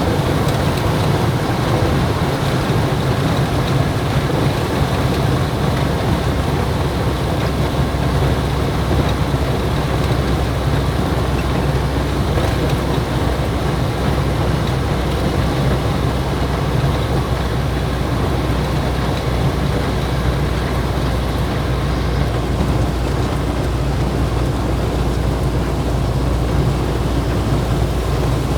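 Ford 1119 truck driving steadily in heavy rain: a low, even engine drone under a constant hiss of rain and wet road noise, heard from inside the cab.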